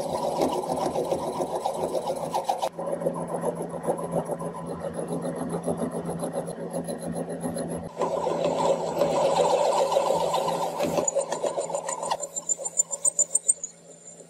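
Metal lathe turning down a rusted steel rod: the motor hums steadily under the rough scraping of the cutting tool taking off rust and metal. The sound changes abruptly a few times, and near the end gives way to a quieter, rapid rhythmic ticking.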